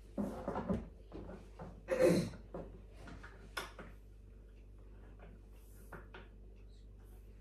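Knocks and clicks of gaming office chair parts being handled and fitted during assembly, the loudest a single bump about two seconds in; after about four seconds only a few soft ticks remain.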